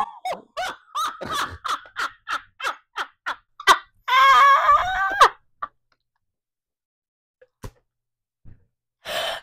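A person laughing hard in quick, high-pitched bursts, about three a second, breaking into one longer shriek of laughter about four seconds in, then going quiet until a short burst right at the end.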